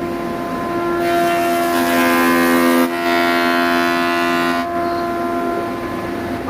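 Power woodworking tool running with a steady motor whine. It grows louder and harsher from about a second in to near the five-second mark, as if cutting into wood, then eases back to the steady whine.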